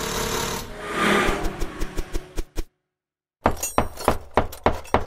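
Logo intro sound effects: a noisy whoosh swelling about a second in, a quickening run of sharp clicks that stops abruptly, then after a short gap a steady beat of sharp hits about three a second.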